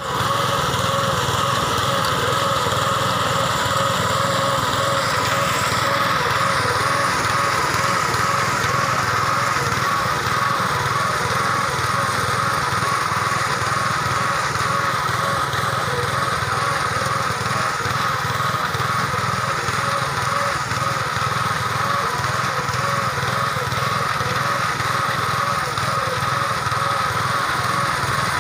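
Small engine of a KAMCO walk-behind crop reaper running steadily at working speed, an even drone with a slight warble.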